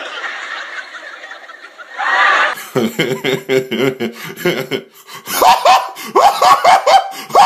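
A man laughing close to the microphone, in quick repeated bursts that grow louder in the second half, after a quieter, murmuring start.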